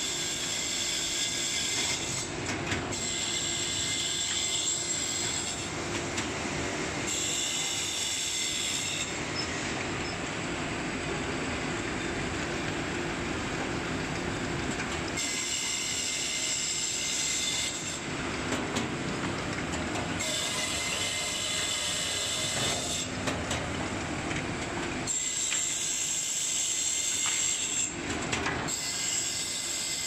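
DEALE multi-blade circular saw (board edger) running, its blades ripping boards fed through one after another. Each cut brings a shrill, high whine lasting two to three seconds, about seven cuts in all, with the machine running at a lower, steady noise between them and a longer gap between cuts in the middle.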